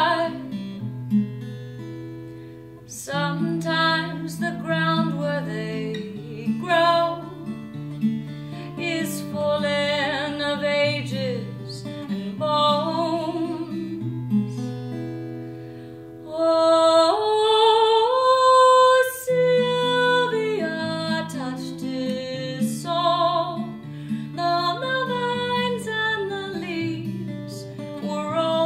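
A woman singing a slow song while accompanying herself on a cutaway acoustic guitar. The loudest stretch comes just past the middle, where she holds a long high note.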